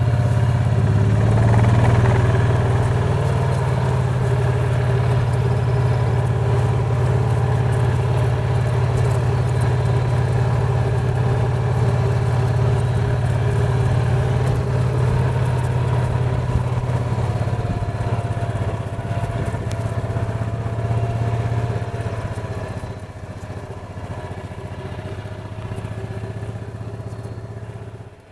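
Golf cart running along a cart path: a steady low motor drone with a faint wavering whine over it, easing off in the last few seconds and then fading out.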